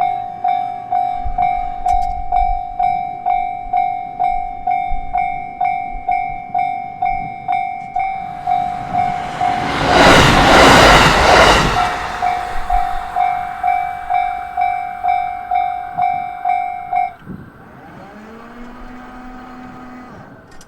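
Japanese level-crossing warning bell dinging a little over twice a second while a train rushes through at speed, loudest for a few seconds near the middle. The bell stops about three-quarters of the way in, and a fainter rising hum follows.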